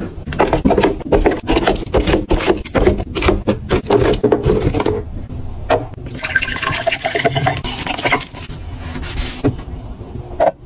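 Milk poured from a carton into a ribbed glass tumbler, a steady filling hiss lasting about three seconds from around the middle. Before it come a few seconds of crinkly handling and tapping of the carton.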